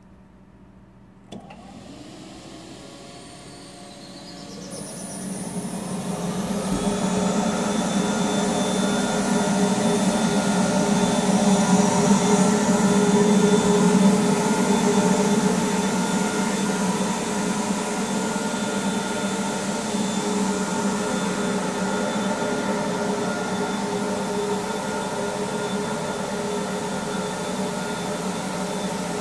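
A large industrial dust extractor is switched on about a second in. Its motor spins up with a rising whine over several seconds, then runs steadily with a loud suction noise.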